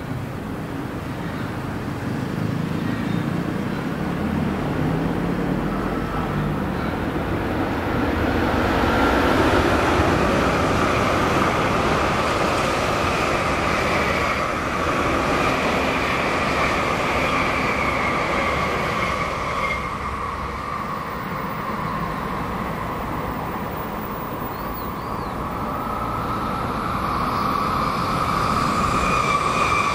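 A Tokaido Shinkansen bullet train passing at moderate speed, about 110–160 km/h: a rush of wheel and air noise with a high steady whine. It swells over several seconds, holds about ten seconds, fades, and a second train's rush builds near the end.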